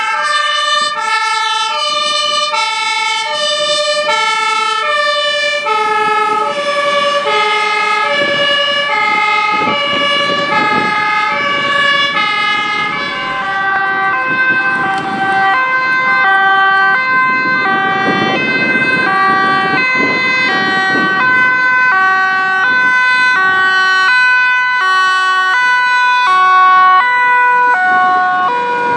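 German two-tone emergency-vehicle sirens (Martinshorn) sound as vehicles pass one after another, each switching between a high and a low note about every three-quarters of a second. After about six seconds a second siren at a different pitch joins, out of step with the first, and from about halfway a steady tone is held under them. Engine and tyre noise from the passing vehicles grows near the end.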